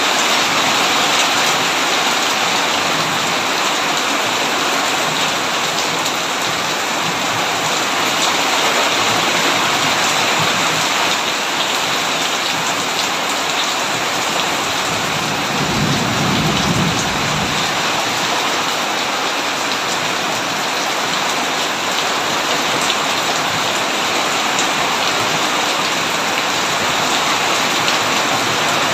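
Heavy rain falling steadily on a tin roof, with a low rumble of thunder about halfway through.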